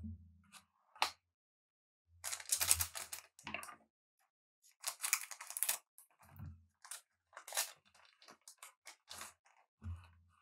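A trading-card booster pack's wrapper torn open and crinkled in two main rips, followed by the cards being handled with small clicks and rustles.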